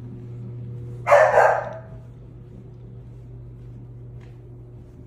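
A pet dog barks indoors, one short, loud burst about a second in.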